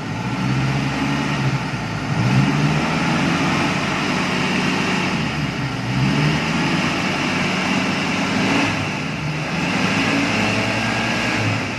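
Car engine running and revved several times, its pitch rising and falling, with no humming drone left: the hum from an oil strainer blocked by the dented oil pan is gone now that the pan has been refitted.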